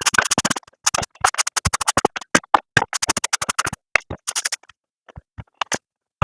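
Short electronic transition music with DJ-style record scratching: a fast, choppy stutter that thins out and stops near the end.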